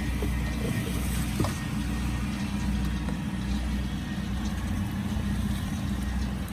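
Small vehicle engine running steadily as it is ridden along.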